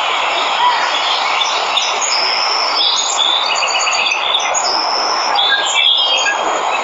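Steady rush of a waterfall, with many birds chirping and trilling over it, the calls thickest in the middle.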